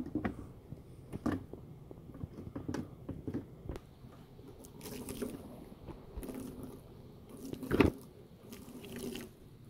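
A hand wiping and rubbing the wet glass of a dusty solar panel in irregular strokes, loosening the dirt, with one sharper, louder knock nearly eight seconds in.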